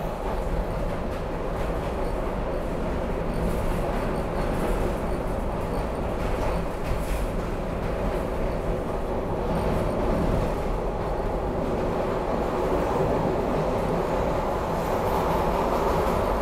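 SEPTA Broad Street Line subway train running at speed through the tunnel, heard from inside the car. Wheels on the rails make a steady running noise with a few faint clicks, growing slightly louder near the end.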